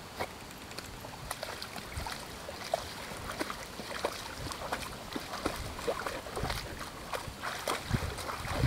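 Samoyed wading through a shallow muddy puddle: water sloshing and splashing in many small irregular splashes, with a louder splash near the end.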